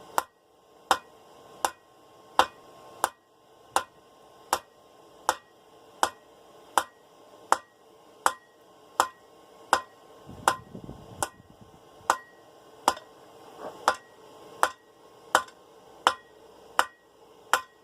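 Hand hammer striking hot 1/2-inch round steel bar on an anvil, drawing the bar out to a taper: a steady rhythm of about one and a half blows a second, each blow leaving a short metallic ring.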